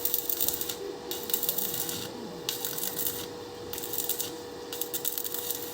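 Repeated scraping strokes on steel, each lasting about half a second to a second with short gaps between, over a steady electrical hum.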